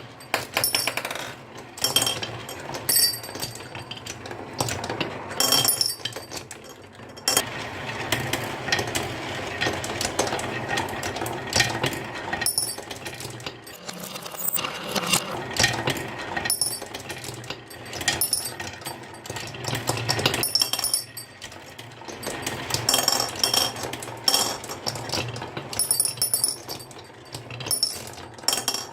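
Marbles rolling and clattering along a marble run track: a continuous rolling rumble broken by many quick clicks and clinks as they knock against the track pieces and each other.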